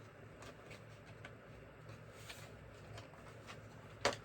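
Faint clicks and taps of screwdriver bits and their plastic case being handled, with one sharper, louder click just after four seconds in.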